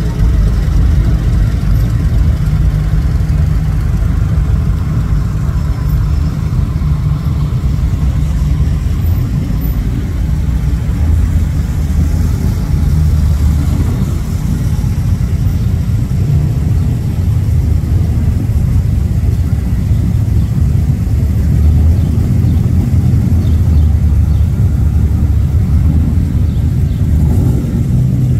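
Engines of classic cars, trucks and hot rods running as they roll slowly past one after another, making a steady low rumble.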